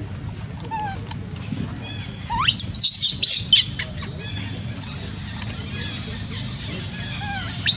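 Baby macaque screaming: a run of shrill, high-pitched squeals starting about two seconds in and lasting about a second and a half, with another burst starting near the end, over a steady low background hum.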